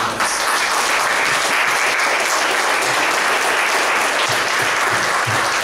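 Congregation applauding loudly and steadily, starting suddenly.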